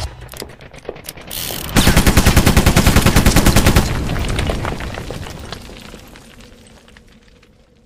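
Sound-effect machine-gun fire: a rapid burst of about ten shots a second for some two seconds, led in by a few clicks and a short hiss, then fading away slowly.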